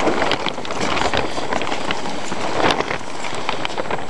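Wind buffeting the microphone in wet, foggy weather: a steady rushing noise with scattered small crackles.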